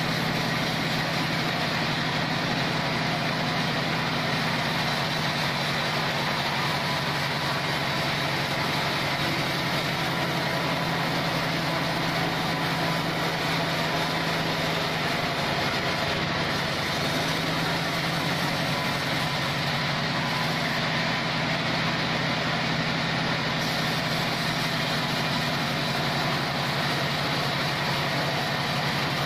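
Log band-saw mill running steadily, an even engine-like drone with no change in loudness.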